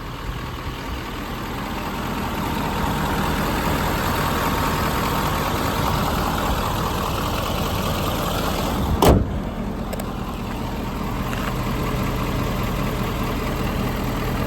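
Ford 6.7 Power Stroke V8 turbo-diesel idling steadily, with one sharp knock about nine seconds in.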